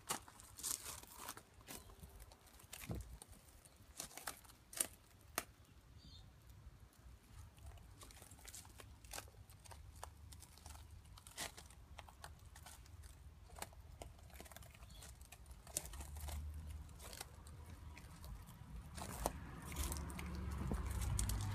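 Footsteps crunching on gravel at a slow walk, in irregular crunches and clicks. A low rumble builds over the last few seconds.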